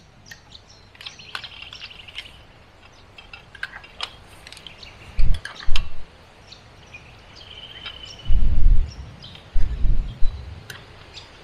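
Birds chirping and trilling in the background. Several loud low rumbles come through around the middle and in the second half, along with a few light clicks.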